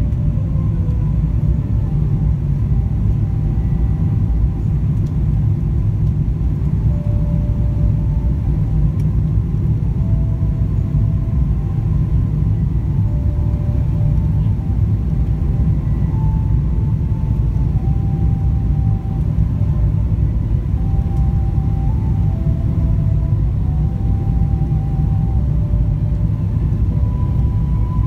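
Airliner cabin noise on the descent to land: a steady, loud low rumble of the engines and the airflow, heard inside the cabin.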